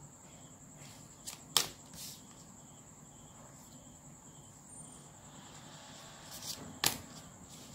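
A pink plastic ruler being shifted and set down on paper and a ballpoint pen marking it, heard as a few light clicks about a second and a half in and again near the end, over a faint steady high whine.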